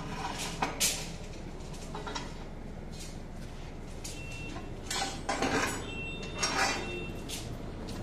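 Scattered metallic clinks and clanks of steel reinforcing rods being handled and worked by hand, a few of them followed by a short ringing note. The loudest cluster of strikes comes about five to seven seconds in.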